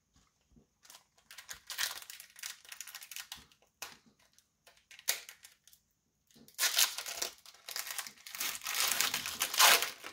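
Hockey card pack wrapper crinkling and tearing as the pack is opened by hand: a lighter spell of crackling early on, then louder, denser crinkling from about six and a half seconds in.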